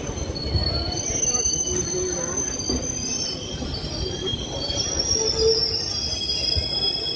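Passenger train's wheels and brakes squealing in several high, slowly shifting tones over the low rumble of the coaches as it rolls slowly along the platform.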